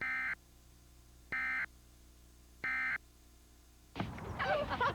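Emergency Alert System end-of-message data tones: three identical harsh digital buzzes, each about a third of a second long and about 1.3 s apart, marking the end of the alert. About four seconds in, louder programme sound cuts back in.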